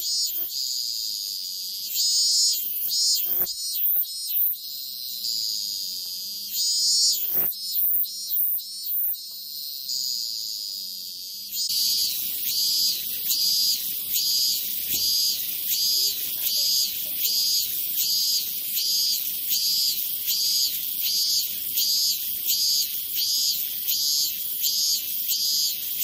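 Cicada singing: a high, pulsing buzz. It comes in irregular swells over a steady drone at first, then, about eleven seconds in, settles into a regular train of short pulses about twice a second.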